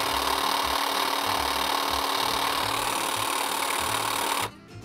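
Cordless battery hedge trimmer running with no load, its blades moving back and forth very fast with a steady buzz. It starts suddenly and cuts off after about four and a half seconds.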